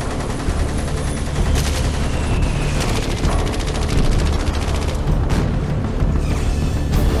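Dramatic title-card soundtrack: a low steady drone under a dense, rapid rattle, with sudden noisy hits about a second and a half, five and seven seconds in.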